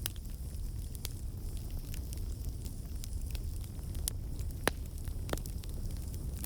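Campfire burning: a steady low rumble of the flames with scattered sharp crackles and pops of the wood, one louder pop near the end.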